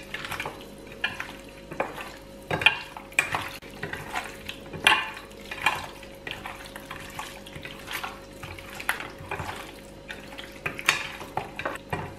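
Bare hands squishing and kneading raw chicken pieces with yogurt and spice powder in a stainless-steel pot, an irregular wet squelching with a few sharper knocks against the pot.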